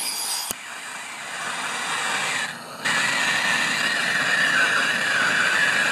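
Aerosol spray can hissing: a softer spray for about two and a half seconds, a brief break, then a louder, steady spray through the rest.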